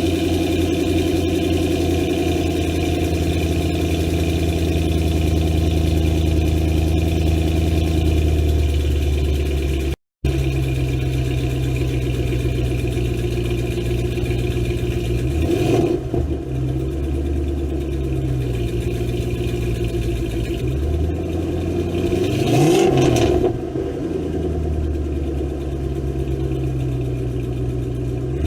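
Ford Mustang engine idling steadily through its exhaust. After a brief cut, the idle picks up again and is revved twice: a short blip past halfway, then a bigger rev that rises and falls back near the end.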